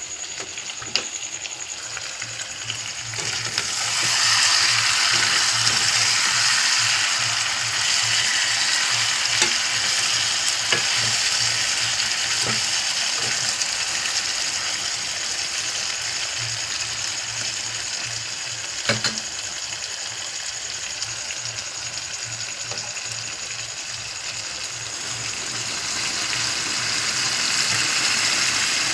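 Chicken sizzling as it fries in oil and spice masala for kosha, being stirred in the pan, with a few sharp clicks. The sizzle swells about four seconds in and stays steady, over a low pulsing hum.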